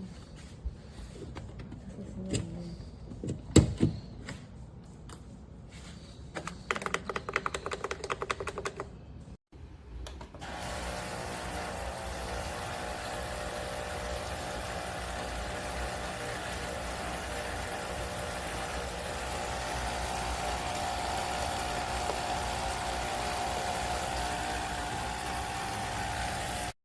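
ChefWave capsule espresso machine: a few clicks and knocks, then a short rapid rattle. After a brief break its pump runs with a steady buzzing hum for about sixteen seconds and cuts off suddenly.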